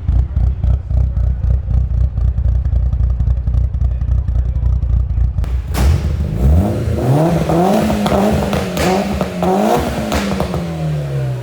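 Mitsubishi Evo 8's turbocharged 4G63 four-cylinder, fitted with an Evo 9 turbo and a screamer pipe, runs low and steady at first. About six seconds in it is put under hard acceleration: the engine note climbs, holds high under a loud rushing noise, and drops away near the end.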